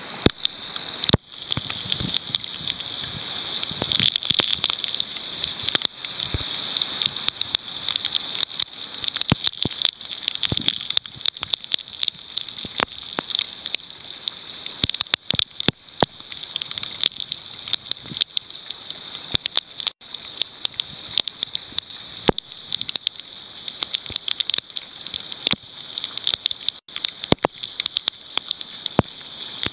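Heavy rain: a steady hiss of downpour with many sharp ticks of close drops striking near the microphone.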